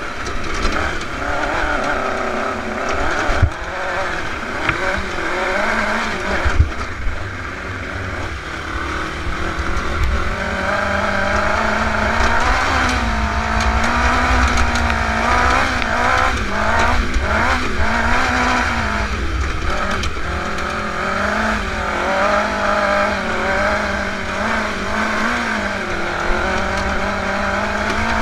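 Dune buggy engine running while driving over rough ground, its revs wavering up and down, over a steady low rumble. Two sharp knocks from bumps come in the first seven seconds.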